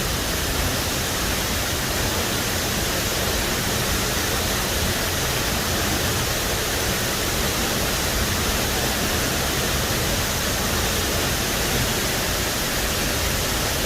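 Waterfall pouring heavily into its pool at close range: a loud, steady rush of falling water that does not let up.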